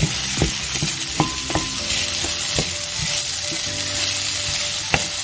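Diced potatoes sizzling in hot oil in a stainless steel pan while a wooden spatula stirs them: a steady frying hiss, broken by irregular knocks and scrapes of the spatula against the pan.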